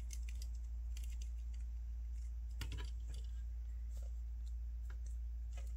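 Small, scattered plastic clicks and taps from a Figure-rise Standard Lite Goku model kit figure being handled, as a swap hand is pressed onto its wrist ball joint, over a steady low hum.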